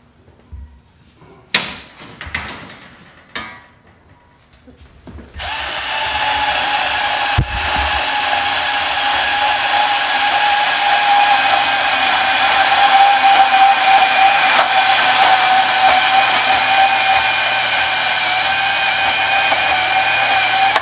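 A few knocks from handling metal, then about five seconds in a power tool starts up on the steel tubing, likely a saw cutting it. It runs steadily with a high whine that sags slightly under load for about fifteen seconds and cuts off suddenly near the end.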